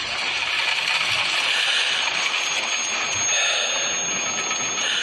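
Slow-motion race-car crash sound design from an animated film trailer: a steady rushing hiss of the tumbling car and debris, with a thin high ringing tone coming in about two seconds in and holding.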